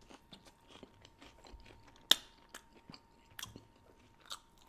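Close-miked chewing of a BBQ shredded brisket taco: a run of small mouth clicks and smacks, with one sharp click about two seconds in.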